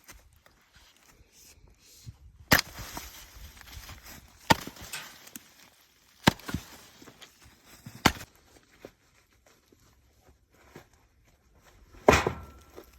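Splitting axe striking ash rounds: five sharp chopping blows, spaced about two seconds apart, with a longer gap before the last.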